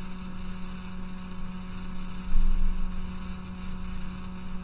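Steady electrical mains hum and hiss on a headset microphone's line, with a brief low rumble a little over two seconds in.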